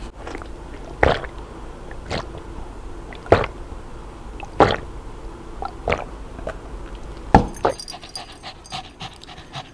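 Small dog panting with its tongue out near the end. Before that come several short sharp sounds about a second apart.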